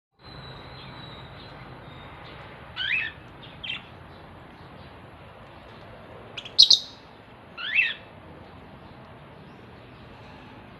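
African lovebirds giving a few short, high-pitched calls, some sliding down in pitch, over a steady low hiss. The loudest call comes about two-thirds of the way in.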